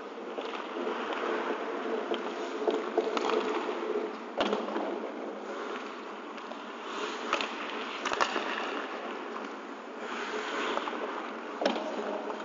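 Ice hockey skates scraping and carving on the ice, with several sharp clacks of sticks and puck. The loudest clacks come about four and eight seconds in.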